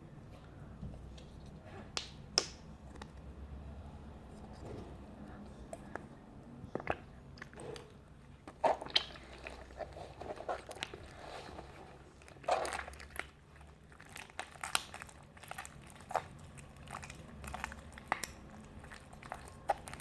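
Runny, sticky slime being handled: soft wet squishing and sticky pulling sounds, with scattered sharp clicks and taps.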